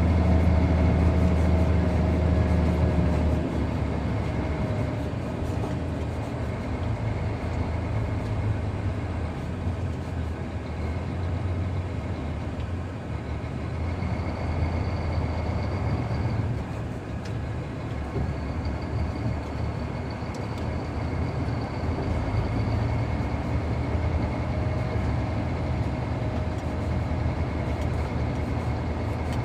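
Heavy diesel machinery running steadily: a strong low hum that eases off about three and a half seconds in, then a rougher rumble with a faint high whine over it.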